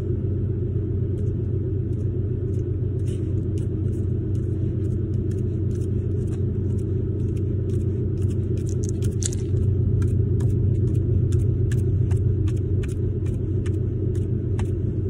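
Steady low rumble throughout, with faint, irregular light taps above it from a cotton ball dabbing white paint onto black cardstock.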